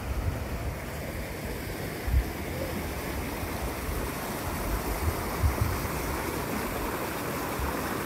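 Steady rushing of a rain-swollen creek, with wind buffeting the microphone in low bumps now and then.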